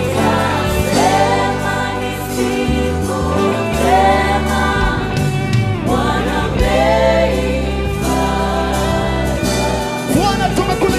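Gospel music with a choir singing over a steady bass line.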